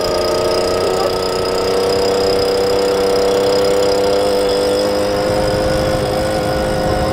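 Handheld leaf blower running steadily at high speed, a steady whine whose pitch creeps slightly upward.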